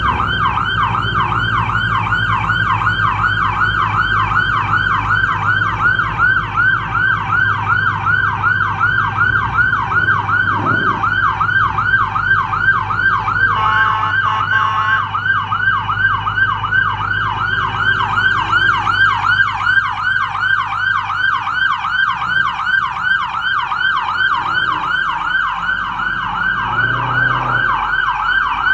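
Police car siren in fast yelp mode, sweeping up and down about four times a second, with a short steady horn-like blast about halfway through. A low engine hum runs underneath.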